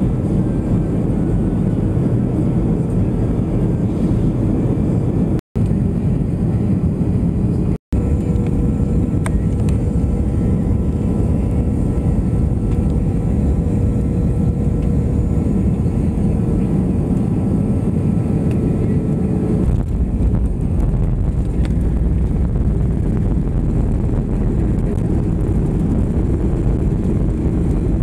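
Airliner cabin noise heard at a window seat on the way down: a steady, loud rumble of engines and rushing air, with a faint steady whine through the middle. It cuts out completely for an instant twice, about five and a half and eight seconds in.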